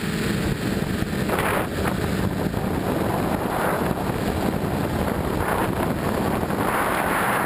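Quadcopter's four Emax 2822 brushless motors spinning 8x4.5 propellers in flight, a steady hum heard from the onboard camera, with wind rushing over the microphone. The wind swells about a second and a half in and again near the end.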